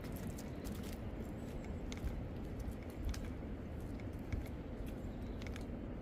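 Strong wind blowing through a bare forest, a steady low rumble, with irregular small crackles and snaps of dry leaves and twigs scattered throughout.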